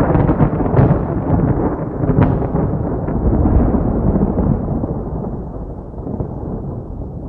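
A loud low rumble with sharp crackles in the first two or three seconds, slowly dying away toward the end.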